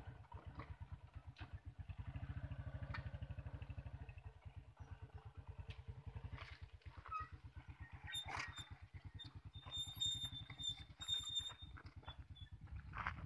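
Motorcycle engine running at a low, even putter, swelling a little a couple of seconds in. Scattered clicks and thin high squeaks come in over the second half.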